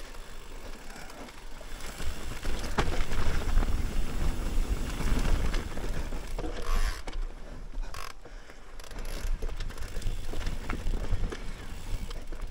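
Mountain bike riding down a rough off-road trail: wind buffeting the helmet or chest camera's microphone, tyres rolling over dirt and rock, and the bike rattling with scattered sharp clicks and knocks.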